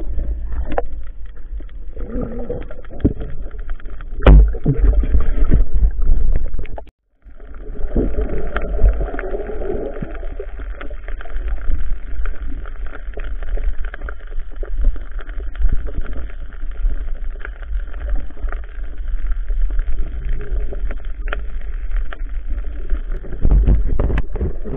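Muffled underwater noise through an action camera's waterproof housing: a low rumble of water movement with scattered clicks and knocks, cutting out for a moment about seven seconds in.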